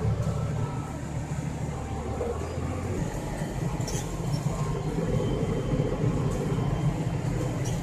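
Case IH Magnum 7140's six-cylinder turbo diesel engine running steadily near 2,000 rpm while pulling a loaded bale trailer, heard from inside the cab. The low drone shifts in pitch about three seconds in, with a short click about a second later.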